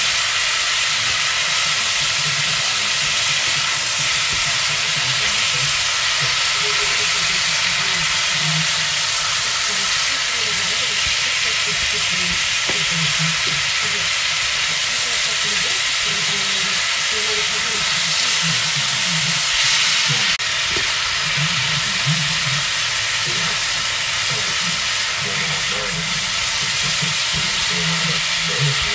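Pork belly cubes and onion frying in a pan, a steady sizzling hiss, while a spatula stirs them.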